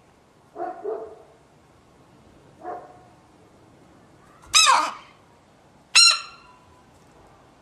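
An animal giving short, sharp pitched cries: two loud ones about four and a half and six seconds in, with two fainter short sounds before them.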